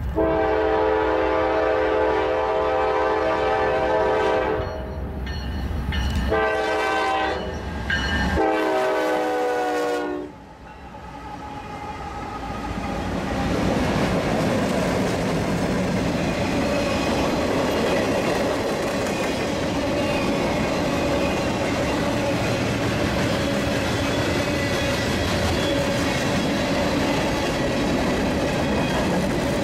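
Norfolk Southern freight locomotive's air horn sounding three blasts, a long one then two shorter ones, the last dropping in pitch as the locomotive passes. Then the diesel locomotives and a long string of freight cars roll by with steady wheel-on-rail noise.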